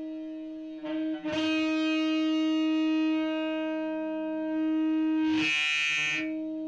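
Overdriven electric guitar with P90 pickups played through a Donner Jet Convolution Flanger in filter mode: a single note picked twice about a second in and left to sustain. Near the end the tone sweeps bright and thin, then settles back.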